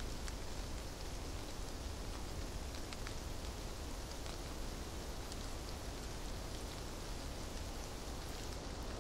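A steady, even hiss with faint scattered ticks.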